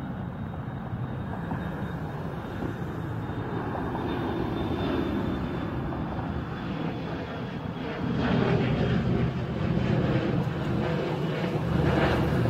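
Twin-engine jet airliner climbing out after takeoff overhead: a steady rushing engine noise with a faint high whine, growing louder about eight seconds in.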